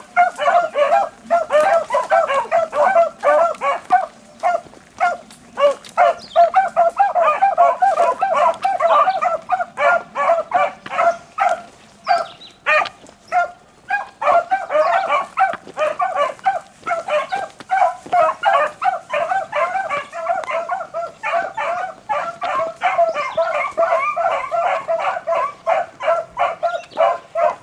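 A pack of beagles in full cry on a rabbit's trail: many overlapping bays, several a second, thinning out briefly near the middle before picking back up.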